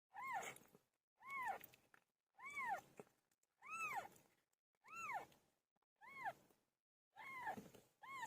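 Cat meowing over and over, about one meow a second, each call rising and then falling in pitch.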